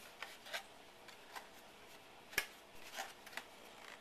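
Stiff paper pieces of a pheromone trap rustling and rubbing as they are handled and pushed together, in faint scattered scrapes, with one sharp click about two and a half seconds in.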